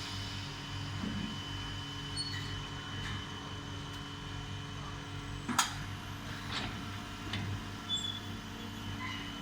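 Automatic glass CNC cutting machine running with a steady electric hum, with a sharp click a little past halfway and a few lighter clicks after it.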